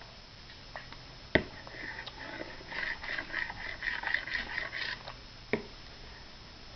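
A toddler's rapid, snuffly breaths through the nose, several a second for about three seconds. Before them comes a sharp tap of a metal fork on the plastic high-chair tray, and another tap follows.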